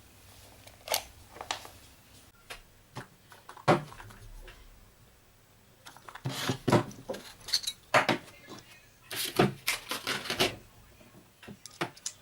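Irregular clicks, knocks and rustling as a hair dryer's hard plastic housing and small parts are handled during repair. A few separate clicks come first, then a busier run of knocks from about six seconds in to near the end.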